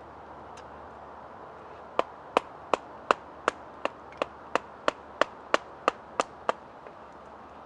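Wood being split with a knife: about fourteen sharp wooden knocks in a steady rhythm, roughly three a second, starting about two seconds in, as sticks of dead standing wood are split into halves and quarters.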